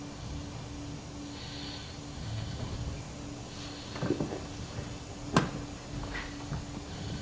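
Handling noise from a webcam or its microphone being moved about: scuffs and a few knocks, with one sharp click about five seconds in. A faint steady hum runs underneath.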